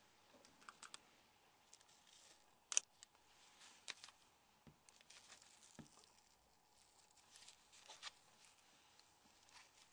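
Near silence broken by faint scattered clicks and rustles of gloved hands handling a Nokia N76 phone's plastic parts, the sharpest click about three seconds in.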